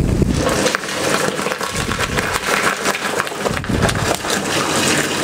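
Cold water pouring into the steel bowl of a bakery dough mixer full of flour, against a steady noise of bakery machinery.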